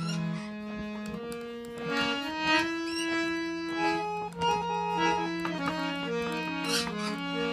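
Harmonium playing held chords and a changing melody over a steady low drone note, with a few short high squeaks about three seconds in and again near the end.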